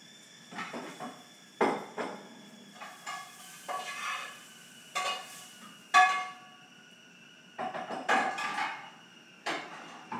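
Kitchenware played as percussion: an irregular run of taps and clanks, some in quick pairs, several ringing briefly with a metallic pitch. The loudest strikes come near the start and about six seconds in.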